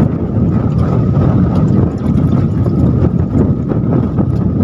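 Wind buffeting the microphone: a loud, steady rumble.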